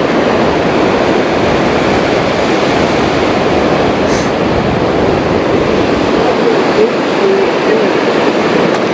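Steady rushing noise of ocean surf breaking on a beach, unbroken and even in loudness.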